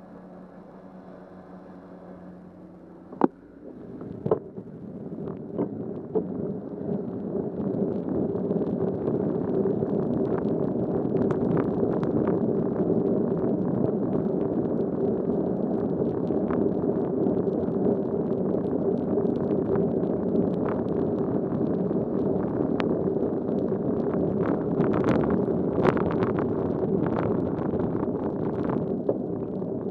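Bicycle pulling away and riding on a wet road: wind rush on the bike-mounted camera's microphone and tyre noise build over a few seconds and then hold steady. Two sharp clicks come about three and four seconds in, and scattered ticks and knocks follow throughout, with a faint low hum before the bike gets going.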